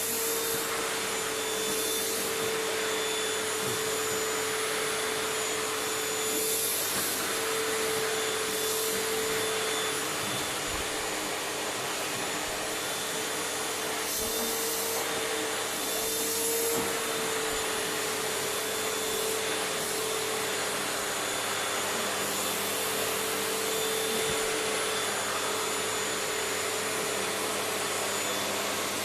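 Household vacuum cleaner running steadily, its nozzle run over a cat's fur. The motor whine wavers slightly in pitch now and then.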